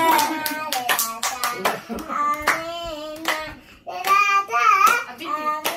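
A young girl singing in a high child's voice, with hands clapping along in many short sharp claps.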